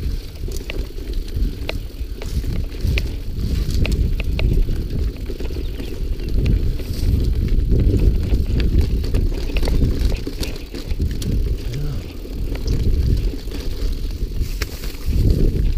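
A mountain bike ridden along a rough, narrow dirt trail, heard from a camera on the rider: a continuous deep rumble of tyres and wind buffeting the microphone, with frequent sharp rattles and clicks from the bike.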